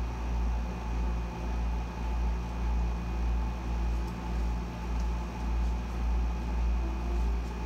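Room air conditioner running on full, a steady low hum that swells and fades slightly about once a second, with faint steady higher tones over it.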